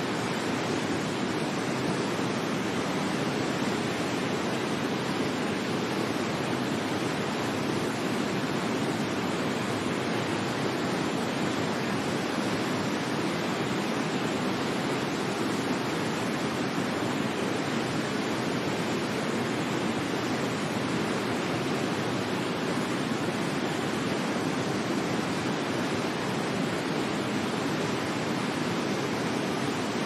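Waterfall: a steady, unchanging rush of falling water, fullest in its deep lower part.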